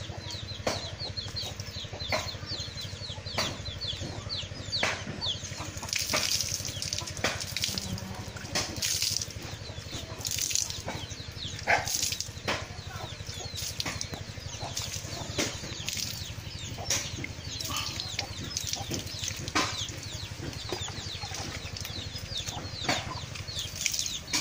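Chickens clucking in the yard, with water poured from a plastic scoop splashing over a horse's back now and then.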